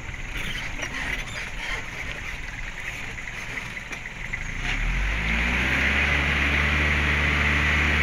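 Vehicle engine and road rumble heard from inside the vehicle on a rough dirt track. About five seconds in, the engine revs up, rising in pitch and getting louder, then holds at the higher revs.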